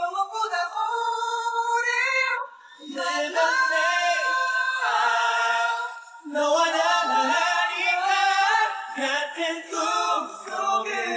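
Young male K-pop singers' voices with the backing music removed, leaving the vocals alone, sung in Korean phrases with a couple of short breaks between them.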